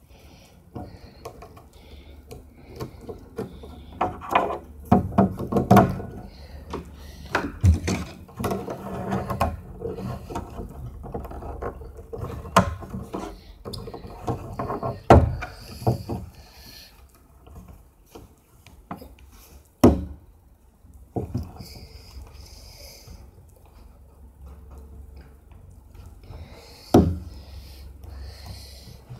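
Small plastic clicks, taps and scrapes of an HTC myTouch 3G phone being put back together: the SIM card, the microSD card and the back cover fitted by hand. Now and then there is a sharper knock of the handset on the table, the loudest about 15, 20 and 27 seconds in.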